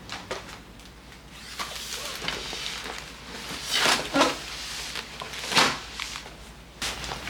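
Kitchen handling sounds: a few light clicks, then rustling and scraping swishes of objects being moved, loudest about four seconds in and again about five and a half seconds in.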